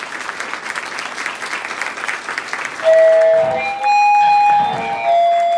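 Audience applauding; about three seconds in, music comes in loudly over the clapping as a few long held notes changing pitch.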